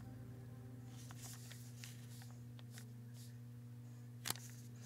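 Faint small clicks and taps of a plastic scale model being handled and turned over a work surface, with one sharper click about four seconds in, over a steady low hum.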